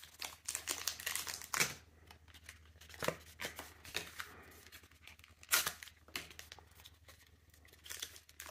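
Plastic Pokémon booster-pack packaging being torn open and crinkled by hand: a string of short crackles and rips with brief pauses between them.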